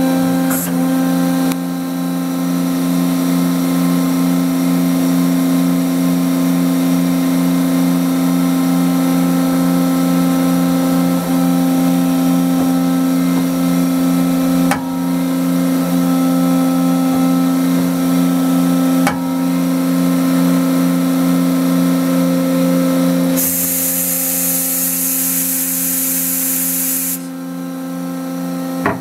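Mazak Integrex 200 multi-axis CNC turning and milling center running, a steady machine whine with several held pitches. There are a couple of sharp clicks about halfway through, and near the end a loud hiss like a spray lasts about four seconds.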